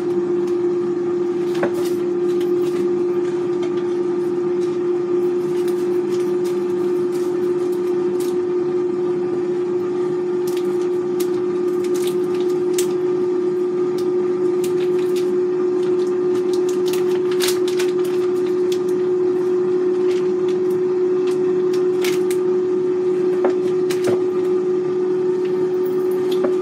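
Cosori 5.8-quart air fryer running while it preheats: a loud, steady hum on one strong pitch. Over it come scattered crackles and clicks from the plastic vacuum-sealed bag holding the frozen steak as it is handled.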